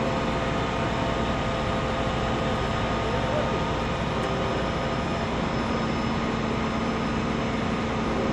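Steady, unchanging mechanical drone with a constant low hum, like idling machinery.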